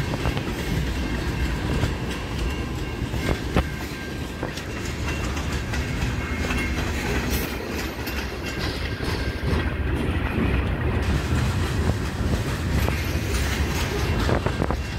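Long freight train of tank cars and covered hoppers rolling past, with a steady heavy rumble of wheels on rail and a few sharp knocks from the cars.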